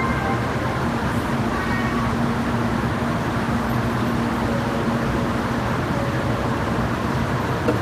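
Steady running noise of a vehicle in motion, an even rumble with a constant low hum.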